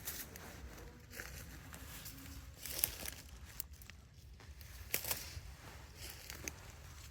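Footsteps in dry leaf litter, with scattered crackles and rustles and a few sharper snaps about three and five seconds in, along with clothing brushing against twigs and branches.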